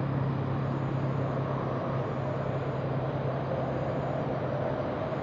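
Steady outdoor background rumble with a constant low hum and no distinct events, like distant traffic noise.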